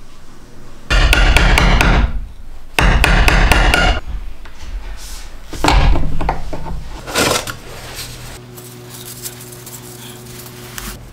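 A wood chisel struck with quick hammer taps, about five a second, in two bursts of roughly a second each, squaring the corners of a router-cut bowtie recess in the board. A couple of shorter knocks follow.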